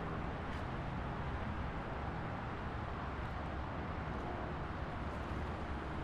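Steady expressway traffic noise: a continuous drone of tyres and engines from passing vehicles, even in level throughout.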